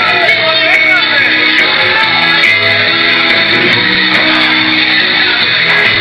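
Loud rock music from a live band: guitar with a voice singing, steady and without a break.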